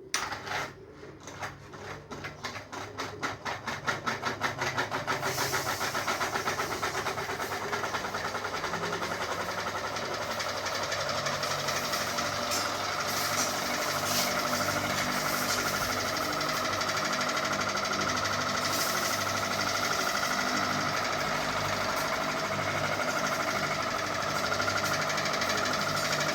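Ceiling fan switched on and spinning up: a regular beat that quickens over the first five or six seconds, then a steady fast mechanical whirr with a rattle.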